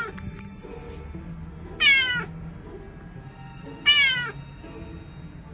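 A cat meowing twice, about two seconds apart, each meow about half a second long, over faint background music.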